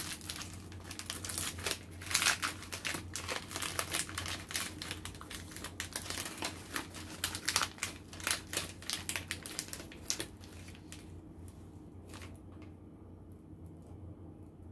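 Foil-lined wrapper of a Hershey's Mint Creme Wafers bar crinkling and tearing as it is peeled open by hand, in a dense run of crackles. About ten seconds in the crinkling stops, leaving only a few faint ticks.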